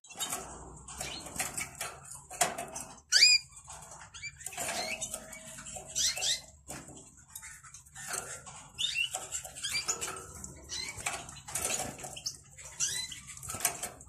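Many birds in a bird market chirping and calling in short rising and falling notes, with scattered small knocks and rustles among them.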